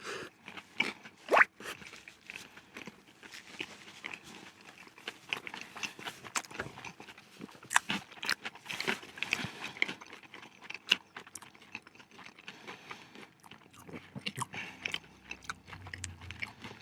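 Biting into and chewing a crispy fried-chicken zinger burger: irregular sharp crunches with chewing between them.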